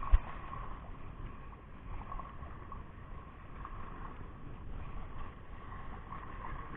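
Spinning reel being cranked to retrieve line, with a steady whir over low wind and water noise on the microphone. A single sharp knock sounds just after the start.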